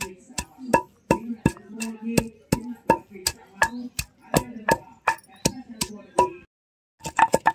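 Wooden pestle pounding garlic cloves and cumin seeds in a stone mortar, with a sharp thud about three times a second. The pounding breaks off briefly near the end, then resumes faster.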